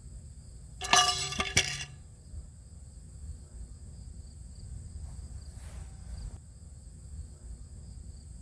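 Two metallic clangs about half a second apart, about a second in, ringing for about a second. Crickets chirp steadily underneath.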